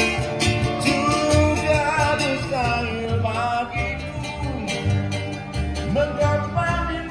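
A small live acoustic band playing a song: acoustic guitar, upright bass and hand drums keeping a steady beat, with a singer's voice over them.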